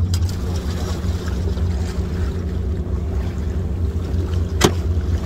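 A steady low droning hum made of a few even tones, over a faint rushing noise, with one sharp click near the end.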